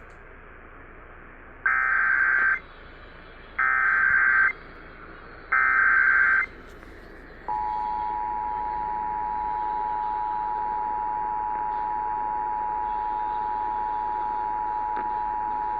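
Emergency Alert System tones over an AM radio broadcast: three one-second bursts of the buzzy digital SAME header, about two seconds apart, then the steady two-tone EAS attention signal, which starts about halfway through and holds. Together they announce an incoming emergency alert, here a severe thunderstorm warning.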